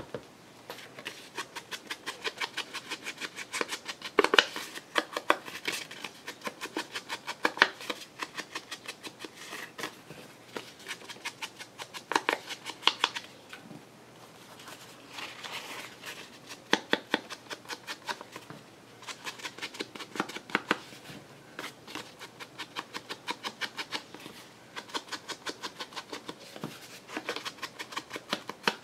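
Scissors cutting paper: a long run of quick snips, about four or five a second, broken by a few short pauses.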